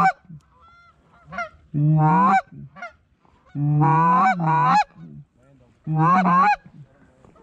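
Loud goose honking in the Canada goose style, coming in groups about every two seconds. Each group is a few quick honks that break upward in pitch. Fainter, higher honks sound between the groups.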